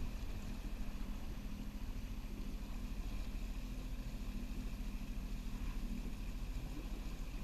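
Jet ski engine running steadily at an even speed, with no change in pitch.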